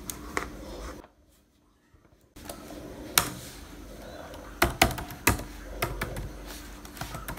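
Laptop keyboard keys clicking as a password is typed: single presses at irregular spacing, a few in quick succession about two-thirds of the way through. About a second in, the sound drops out entirely for just over a second.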